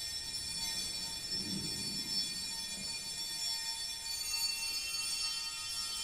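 Church pipe organ holding sustained chords on bright, high-pitched stops, with new notes joining about four seconds in.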